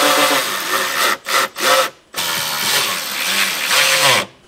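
Milwaukee Fuel cordless ratchet running down bolts, its motor whining under load. It runs for a second, gives a few short blips, then runs for about two seconds more and stops just before the end.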